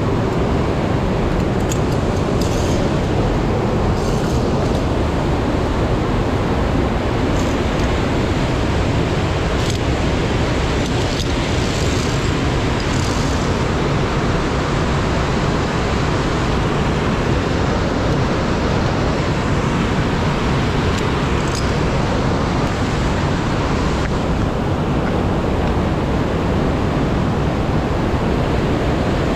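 Steady rushing roar of a gorge stream's water, even and unbroken, with a few faint high ticks on top.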